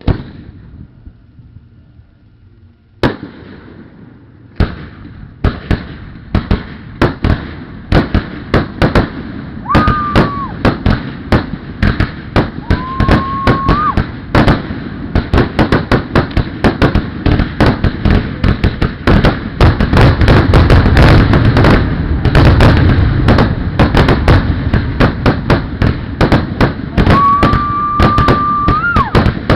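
Aerial fireworks display: a single bang, a second one about three seconds in, then explosions coming faster and faster until they merge into a dense, near-continuous barrage of booms and crackles, heaviest past the middle. A high whistle is held for a second or two three times during the barrage.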